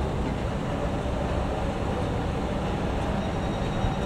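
Steady low rumble of a train at a level crossing.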